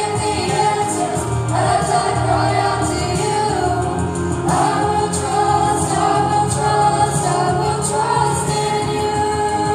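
A group of young people singing a song together, in long held notes with new phrases beginning every few seconds, over a steady accompaniment.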